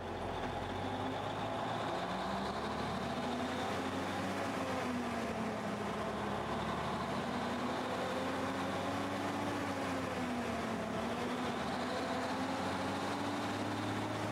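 Engine of a 1954 Freightliner tanker truck running steadily while the truck is driven, heard from inside the cab. The engine note rises and falls gently with no sharp changes.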